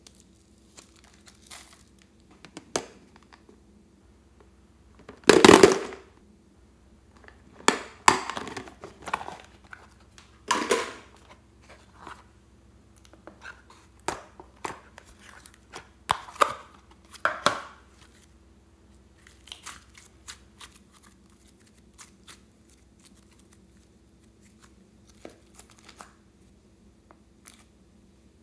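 Hands handling small plastic containers over a plastic bowl of slime, making crinkling, crackling and clicking sounds in scattered bursts with pauses between. The loudest bursts come about five seconds in and again around eight to eleven seconds in.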